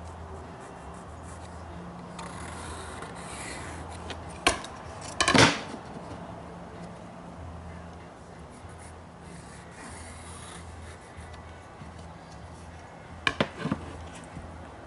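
Wooden board being handled and worked, scraping and rubbing against wood. Sharp knocks come about four and a half seconds in, a louder one about a second later, and a quick run of two or three near the end.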